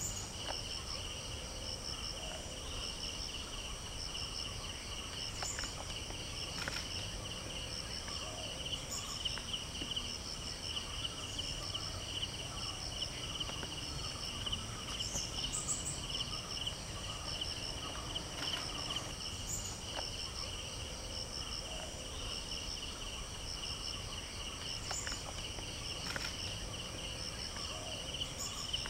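Steady chorus of insects such as crickets: several high-pitched, finely pulsing trills layered over a low background rumble, with a few faint clicks here and there.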